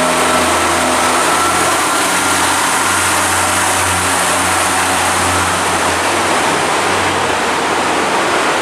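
Diesel train engine running steadily, a continuous low hum under a broad even noise.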